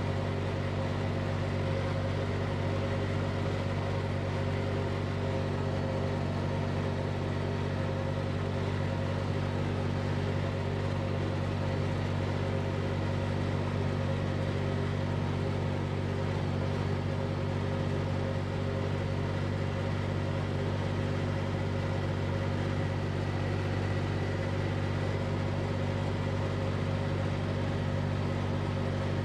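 Compact tractor engine running steadily at a constant speed while the tractor drives along, a level, even hum.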